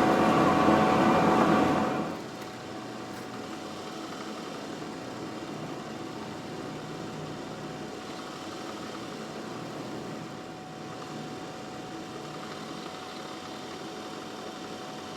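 Drill press boring a hinge-cup hole with a Forstner bit while a dust extractor runs. The loud cutting noise stops suddenly about two seconds in, leaving a steady machine hum.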